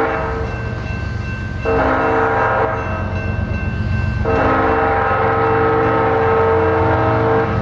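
Approaching diesel locomotive's air horn blowing for a grade crossing: the end of one blast at the start, a short blast about two seconds in, then a long blast of about three seconds from about four seconds in. Under it, the low steady rumble of the locomotives' diesel engines.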